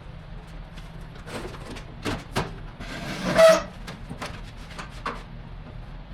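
Scattered knocks and clatter over a steady low hum, with a brief pitched squeal about three and a half seconds in, the loudest sound.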